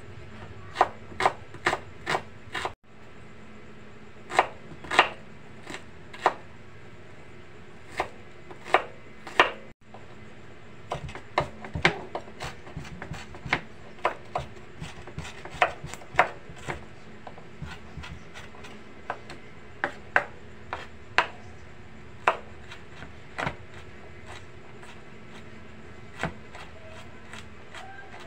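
Chef's knife chopping garlic and red onion on a wooden cutting board: sharp, irregular knocks of the blade against the board, coming in a quicker run through the middle.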